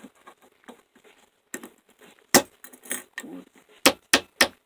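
Hammer striking a bent metal door-handle part to bend it back into place: sharp metallic blows starting about two seconds in, the last three in quick succession. The part is not straightening.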